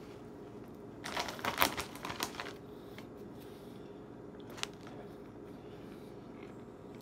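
Foil chip bag crinkling in a quick flurry of rustles about a second in, as a hand digs into it for chips, over a steady low hum. One small click a little past the middle.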